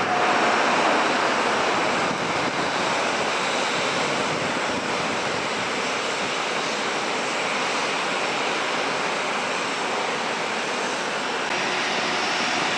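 Jet airliner engines running at taxi power: a steady, even rushing noise with no distinct whine.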